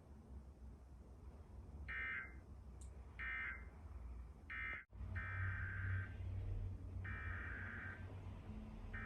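Emergency Alert System digital data bursts: three short end-of-message bursts a little over a second apart, then a sudden brief cut about halfway through, then the three longer, roughly one-second SAME header bursts that open the next alert.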